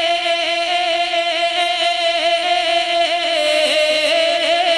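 Male voice singing a naat, holding one long drawn-out note with a wavering ornament that dips slightly in pitch near the end.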